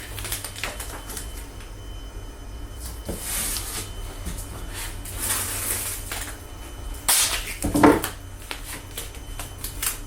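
Tape being pulled off the roll and pressed down by hand: several short scratchy rasps, with a few handling knocks about three-quarters through, over a low steady hum.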